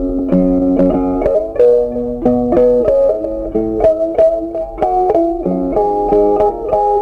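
Background music: plucked guitar playing a melody, notes changing a few times a second.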